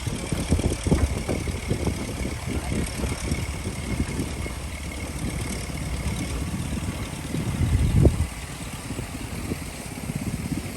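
Heavy diesel engine of a construction machine running, with a steady low firing pulse; it swells briefly to its loudest about eight seconds in, then drops back.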